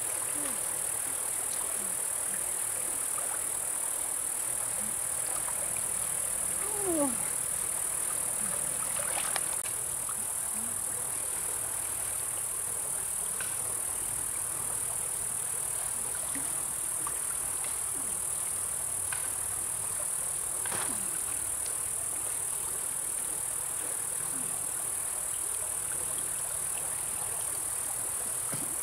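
Steady, high-pitched insect drone, with a few short falling chirps.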